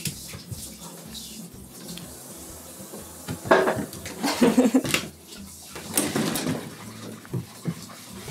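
Dishes and cutlery clattering and clinking, in a cluster of knocks from about three and a half to five seconds in and again at about six seconds.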